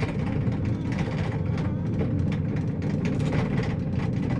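Steady low rumble inside a cable car cabin as it travels along the cable.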